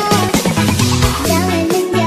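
Electronic dance music with a steady beat, bass notes and a bright melody.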